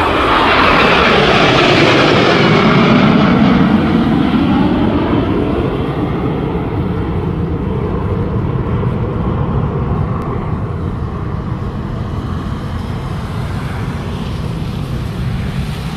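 RAF Panavia Tornado jet flying past: loud jet engine noise whose pitch falls over the first few seconds as it passes, then slowly fades away.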